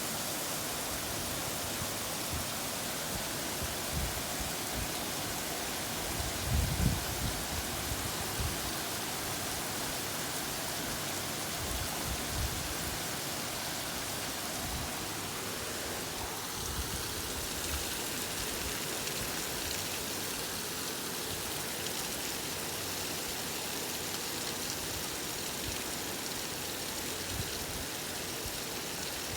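Heavy rain shower pouring down, a steady even hiss of falling rain. A few short low thumps come through it, the loudest about seven seconds in.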